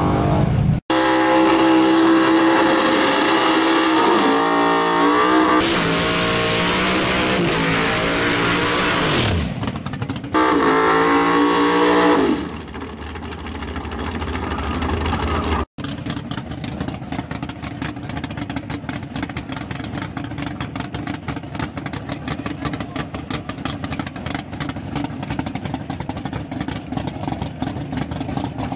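Drag-racing V8 engines at full throttle: revving hard with repeated pitch steps from gear changes, a stretch of broad rushing noise and a long falling tone as one runs off. After a cut comes a steady, rough, rattling rumble of a race car running near the start line.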